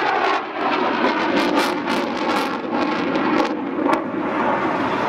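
F-14 Tomcat's twin jet engines at close range: loud, continuous jet noise with a ragged, crackly edge.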